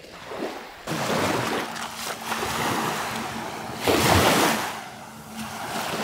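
Small waves washing up onto a sandy beach, with one louder surge of surf about four seconds in.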